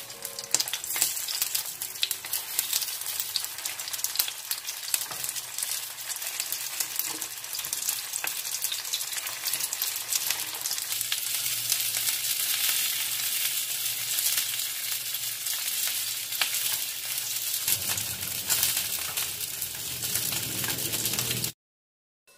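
Frozen dumplings pan-frying in oil in a nonstick frying pan: a steady, dense sizzle full of small crackling pops, which cuts off suddenly near the end.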